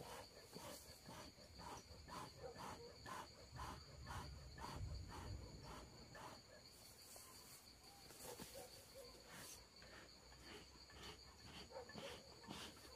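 Faint insects chirping in an even rhythm, about two or three chirps a second, over a steady high-pitched insect trill. A low rumble comes in about four to five seconds in.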